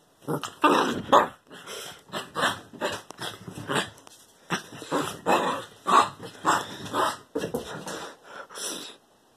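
Small dog vocalising in a rapid string of short noises, about two a second, that stops suddenly near the end.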